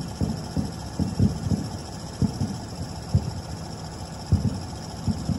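Single-car KiHa 40 diesel railcar idling at the platform, under irregular low booms coming at uneven intervals, some in quick clusters, typical of distant fireworks bursts.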